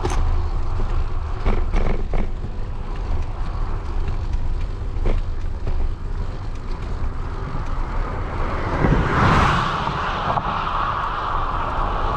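Wind buffeting the microphone of a bicycle-mounted camera while riding a loaded folding bike along a highway, a constant low rumble with a few small knocks. About nine seconds in, the rushing tyre noise of a passing vehicle swells up and stays.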